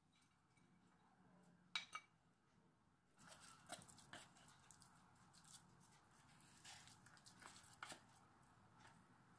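Two sharp clicks about two seconds in, then faint, irregular scraping and scratching with small clicks as drained canned tuna is scraped out of its metal can into a glass bowl.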